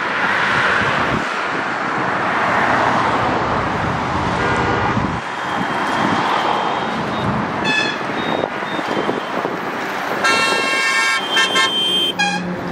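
Steady road traffic noise with vehicle horns honking: a few short toots, then a longer honk of about a second near the end.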